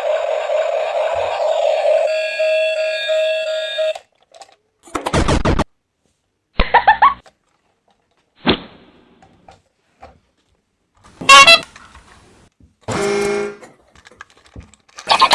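Electronic music for the first four seconds, then a string of about six short, separate sound effects, several of them horn-like toots.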